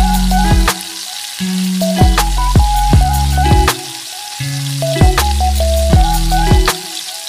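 Background music with a steady beat and bass notes, over onions and garlic sizzling in hot oil in a steel wok.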